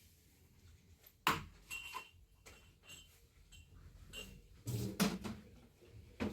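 Scattered sharp knocks and light clinks: a strong knock a little over a second in, a few lighter ones after it, and a louder cluster about five seconds in.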